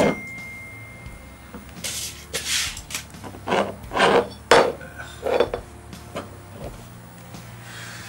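Rubbing and rustling of bedsheets as a glass liquor bottle is picked up and handled, with several short knocks bunched around the middle.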